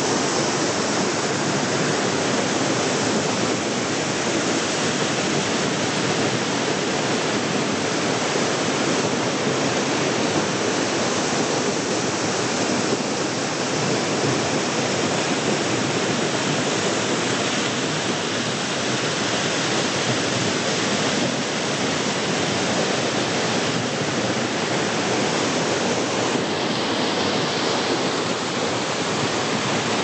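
Waterfall running: water pouring over rock ledges into a plunge pool, a steady rushing hiss with no change.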